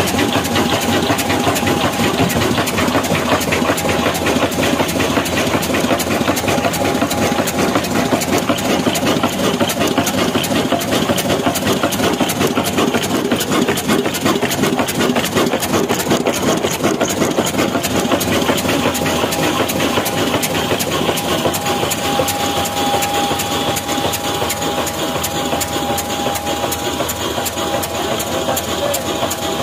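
Old 18 HP black horizontal diesel engine running steadily with a fast, even chug, belt-driving a mini flour mill. A steady thin whine sits over the running, clearer in the second half.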